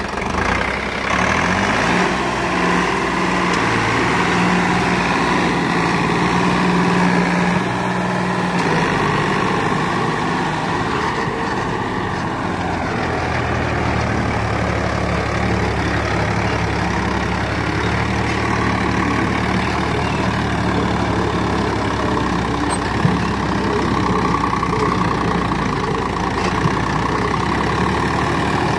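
Turbocharged diesel engine of a Swaraj 855 tractor running steadily under load while dragging a land leveller through loose soil; its note shifts a couple of times.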